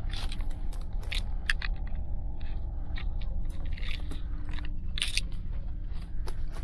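Footsteps crunching through dry leaves and brush, with dry stalks and twigs snapping and crackling at irregular moments, over a steady low rumble.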